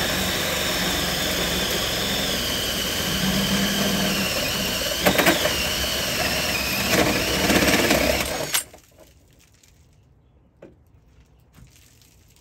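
A DeWalt cordless drill driving a Milwaukee Hole Dozer hole saw through a van's steel roof panel. The drill runs steadily at full speed with a high steady whine as the saw cuts the sheet metal. It stops suddenly about eight and a half seconds in, once the saw has cut through.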